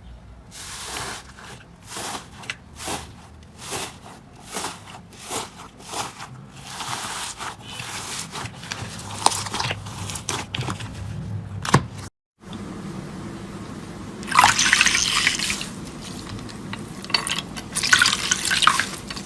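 Slime being handled: a steady run of wet clicks and pops, about three every two seconds. After a brief break comes a louder, wet splashing, running-water-like sound.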